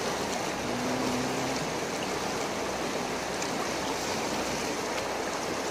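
River water rushing, a steady even hiss of flowing water.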